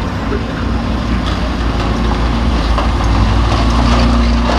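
Banger racing car engines running as the cars drive slowly through the pits: a steady low rumble.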